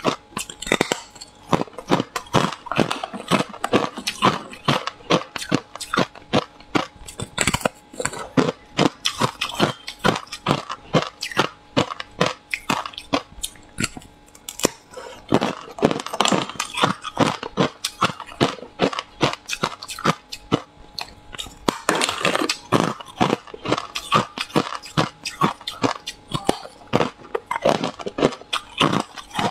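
Hard ice being bitten and chewed: a dense, rapid run of sharp crunches and cracks, with no break.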